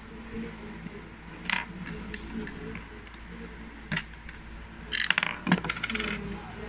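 A hand-worked Lego gumball machine: single sharp clicks of plastic bricks, then about five seconds in a quick run of rattling clicks.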